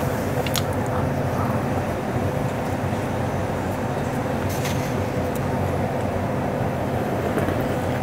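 Steady machine hum of convenience-store background noise, a low drone with a steady tone over it, with a few faint mouth clicks from chewing.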